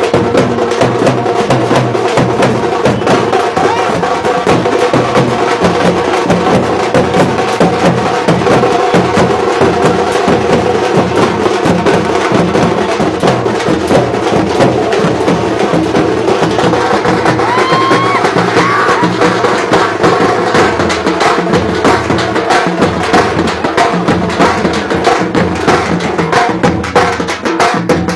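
A procession drum band beating a loud, continuous fast rhythm on large drums over steady sustained tones, with a crowd around it.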